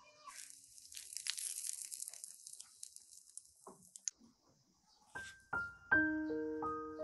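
Crisp crackling and crunching of a pan-fried tortilla wrap handled with a silicone spatula, lasting about four seconds and cutting off suddenly. Piano music starts about a second later.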